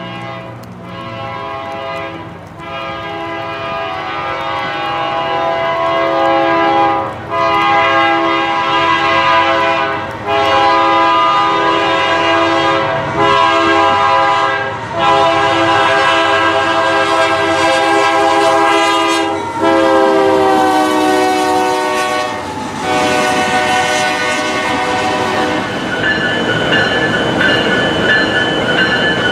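Train horn sounds: long held multi-note tones that change every few seconds, with a falling pitch glide about twenty seconds in.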